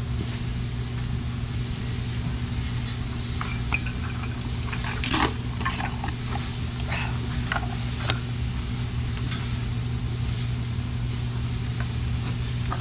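Steady low machine hum of a barn, with a few scattered knocks and brief clatters in the middle.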